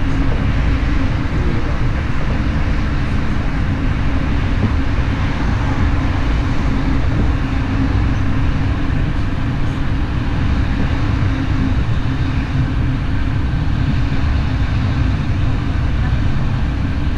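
Steady rolling noise of an SBB Interregio passenger train on the move, heard inside the carriage, with a steady low hum underneath.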